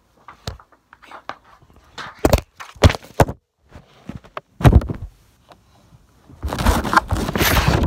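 Handling noise on the recording phone's microphone: a string of knocks and bumps, then loud rubbing and rustling against the microphone for the last second and a half.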